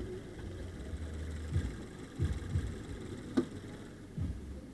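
Subaru BRZ hood being handled for closing: soft knocks as the prop rod is taken down, and a sharp click about three and a half seconds in as it snaps into its holder, over a low steady rumble.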